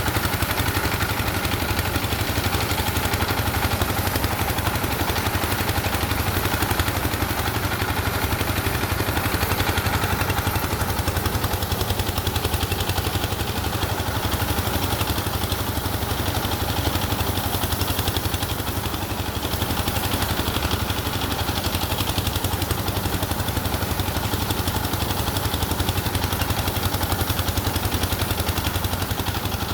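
An engine running steadily at a constant speed, with an even low rumble that does not change.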